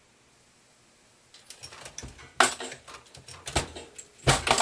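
Brass .40 S&W cases clicking and clinking against metal as they are handled and pushed through a factory crimp die on a reloading press, with several sharp louder clacks. This is push-through resizing of Glock-bulged brass, the sized cases rattling up a tube and spilling out the top.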